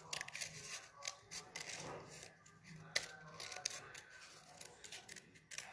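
Scissors cutting through paper: a run of quiet, irregular snips with light paper rustling as a shape is cut out.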